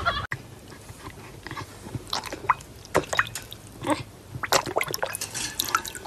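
A dog lapping water from a bowl: irregular wet clicks and slurps, coming faster in the second half.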